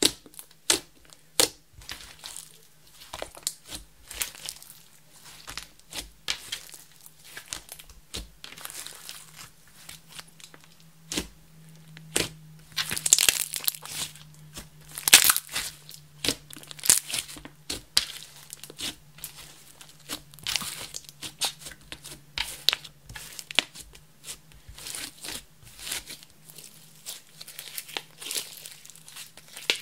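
Thick clear slime, coloured red with mixed-in makeup and glitter, being poked, pressed and squeezed by hand. It makes irregular wet clicks, pops and crackles, most dense and loudest around the middle.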